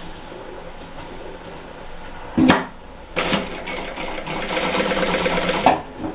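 A sewing machine running a short burst of stitches, starting about three seconds in and stopping shortly before the end, as a stitch-in-the-ditch line is sewn along a patchwork seam junction. A single sharp knock comes a little before the machine starts.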